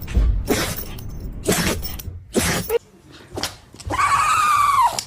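A dog sneezing, a sharp burst about once a second, four times. Near the end comes a high steady tone about a second long that drops in pitch as it stops.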